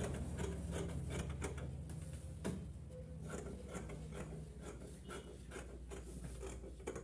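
Scissors cutting through suit lining fabric: a run of irregular snips with the blades clicking as they open and close, over a low steady hum.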